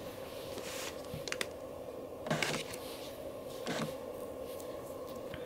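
Soft rustles and light clicks as an iPad mini is lifted out of its cardboard box and set down, with the loudest handling noise about two and a half seconds in. A steady faint hum lies underneath.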